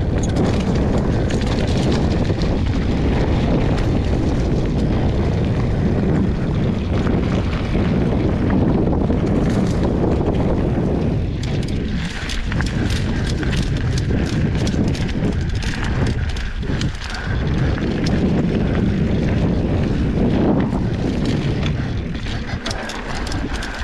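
Mountain bike riding fast down a dirt singletrack: wind buffeting the camera microphone over a steady rumble of knobby tyres on dirt. From about eleven seconds in, many quick clicks and rattles from the bike and the leaf-littered trail join the rumble.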